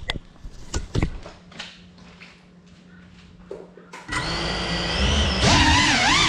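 GEPRC Cinelog35 ducted cinewhoop drone: a few knocks as it is handled on the floor, then about four seconds in its motors spin up into a buzzing whine that gets louder about a second later and wavers in pitch with the throttle as it lifts off.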